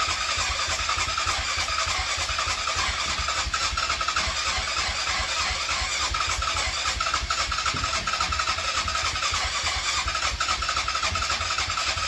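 Yamaha Grizzly 660's single-cylinder engine cranked over continuously by its electric starter, with an even, fast pulsing as it turns over. It never fires or catches: the engine turns over but won't start despite having spark and fuel.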